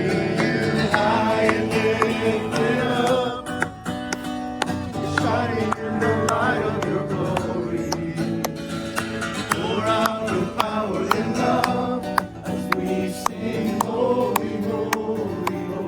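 A song with a singing voice over plucked acoustic guitar.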